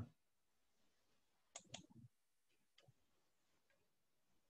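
Near silence broken by a few faint clicks: a quick pair about one and a half seconds in, then fainter single ticks later.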